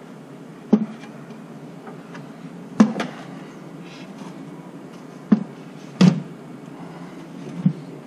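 Handling knocks as a virtual pinball cabinet's metal top frame is shifted and set down onto the wooden cabinet: six short, sharp knocks a second or two apart, two of them in quick succession about three seconds in, over a steady low hiss.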